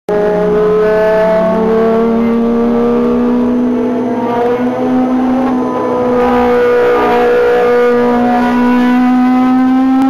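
Ferrari race car engine running on track, one continuous note whose pitch climbs slowly with small dips.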